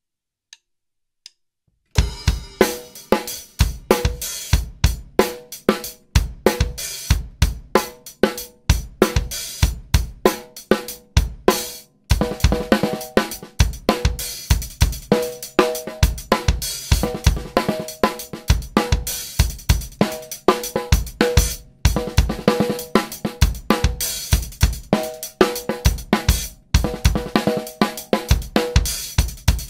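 Acoustic drum kit played in a steady groove on hi-hat, snare and bass drum, starting about two seconds in. After a brief break about twelve seconds in, the groove starts again with ghost strokes, quiet snare notes added between the main beats.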